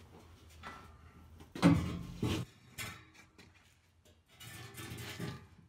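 Steel frame and steel pieces being handled, knocking and scraping against each other, with brief metallic ringing; the loudest knock comes just under two seconds in.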